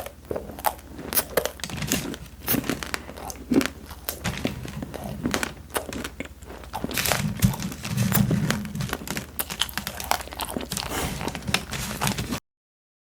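Close-miked chewing of crunchy fried snacks and crispy candy: a dense run of crisp crunches and crackles. It stops abruptly just before the end.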